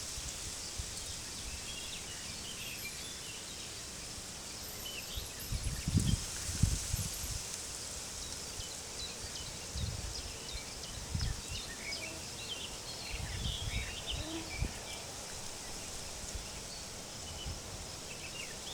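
Birds chirping here and there over a steady high hiss of open-field ambience, with a few low gusts of wind buffeting the microphone.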